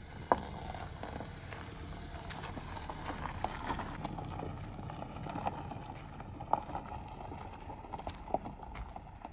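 Footsteps crunching on gravel, an irregular run of short crunches and clicks.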